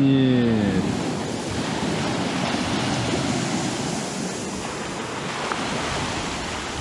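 Storm wind and rough, whitecapped waves, with wind buffeting the microphone. In the first second a man's drawn-out voice falls in pitch and fades.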